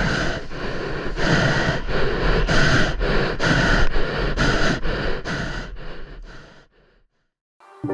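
Water slapping against a prone hydrofoil board as it glides after being towed, with wind rumbling on the microphone; the splashes come about two to three a second and fade away near the end, cutting to silence.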